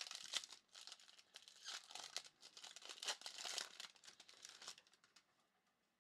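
Foil trading-card pack crinkling and tearing as it is ripped open by hand, in irregular bursts of crackling that die away about five seconds in.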